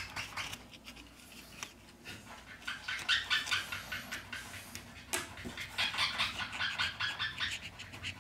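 Ultra-thin plastic opening card scraping along the edge of a Huawei Mate 20's back cover, with quick crackling as it works through the adhesive, coming in uneven bursts.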